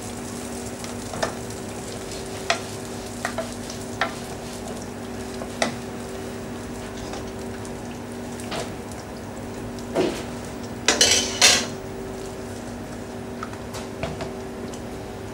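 Wooden spoon stirring a thick velouté of chicken stock and blonde roux in a stainless steel saucepan, with scattered knocks and scrapes of the spoon against the pan and a louder clatter about eleven seconds in. A steady low hum runs underneath.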